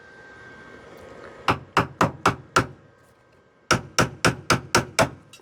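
Hammer blows on a sheet-steel patch panel, bending it in to shape: a run of five quick strikes, a pause of about a second, then six more, about four a second.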